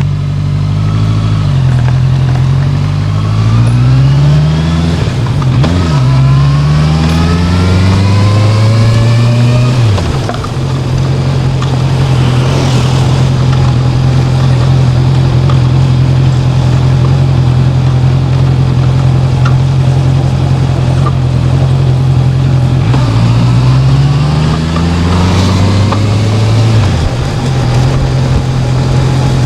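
Honda CB650F's inline-four engine pulling away and accelerating up through the gears, its pitch climbing in each gear and dropping at each shift, then holding steady at a cruise. Near the end it climbs once more and drops back before settling again.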